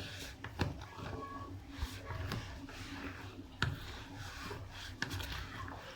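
Chopped tomatoes, cucumbers and coriander being mixed in a bowl: steady rubbing and scraping, with a few sharp clicks of a utensil or the bowl.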